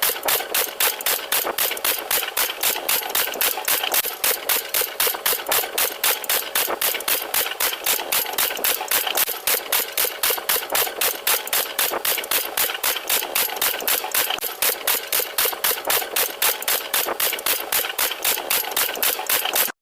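Rapid, even pounding, about four strokes a second and unchanging in pace, with almost no bass.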